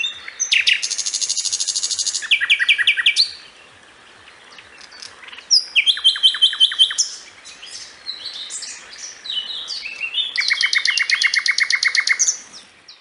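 Nightingale singing: three phrases of fast repeated notes, each a second or two long, with softer, varied notes between them.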